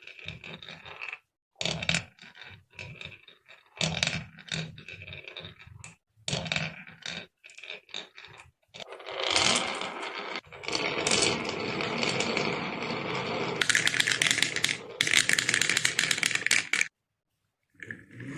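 Marbles rolling and clattering along a marble run, heard first as short separate bursts and then, from about halfway, as a steady dense rattle of rolling and knocking that is thickest for a few seconds before stopping.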